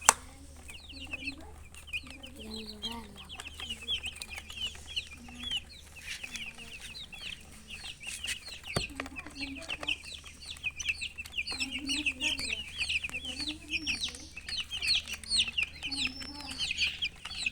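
Many chicks peeping at once in quick high chirps, with a hen clucking low in short runs underneath. A sharp click sounds at the very start.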